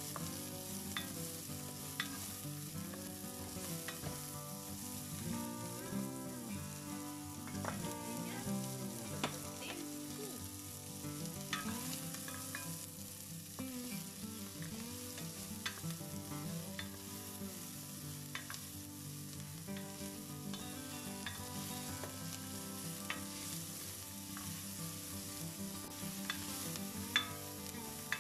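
Chopped onion and garlic sizzling steadily as they fry in coconut oil in an enamelled pot, stirred with a spoon that clicks and scrapes against the pot now and then.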